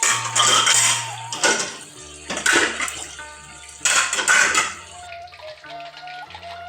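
Water splashing and running in three bursts, with dishes and pots clattering, over background music; the splashing stops about five seconds in.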